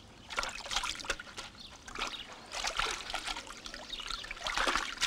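Water splashing and trickling in uneven bursts as clothes are scrubbed and rinsed by hand in a stone wash trough.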